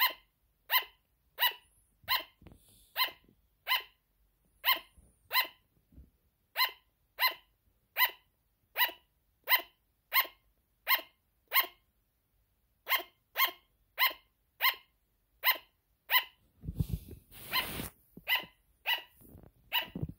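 A sugar glider barking: a long, even run of short, high-pitched yaps about one and a half a second, with a brief break about twelve seconds in. Near the end a burst of rustling noise partly covers the barks.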